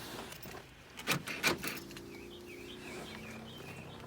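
Two sharp clicks about a second in, the car's power door locks being locked, followed by a faint steady hum.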